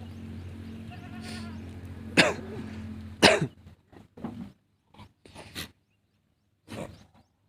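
Goats on a farm giving harsh, cough-like bleats: two loud calls about two and three seconds in, then several shorter ones. A steady hum runs underneath until about three seconds in.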